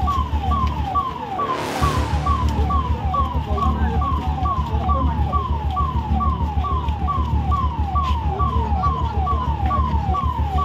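Emergency vehicle siren sounding a fast repeating falling sweep, about two a second, over a low, pulsing engine rumble.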